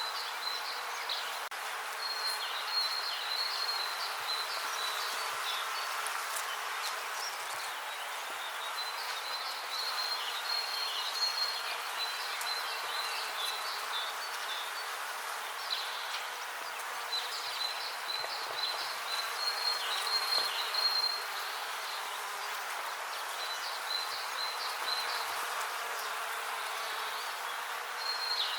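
Bees buzzing steadily in a continuous hum, with a high, thin chirping call that comes in phrases of a few seconds, several times over.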